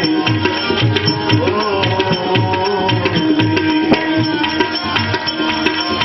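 Instrumental bhajan music with no singing: a tabla keeps a steady beat, with low bass strokes about twice a second, over a held drone note and melodic accompaniment.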